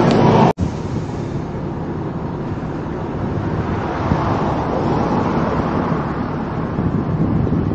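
Steady outdoor noise of a car running and road traffic, with wind on the microphone, heard from an open-top car. It follows a sudden dropout about half a second in, where louder sound cuts off.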